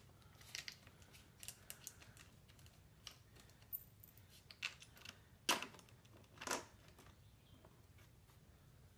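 Irregular light metallic clicks and taps of a hand wrench working a bolt on the dirt bike, the two loudest about five and a half and six and a half seconds in.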